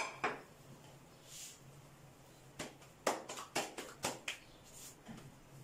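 Light clicks and taps of kitchen utensils being handled, with a quick run of about eight clicks in the middle and two short soft hisses, over a faint steady low hum.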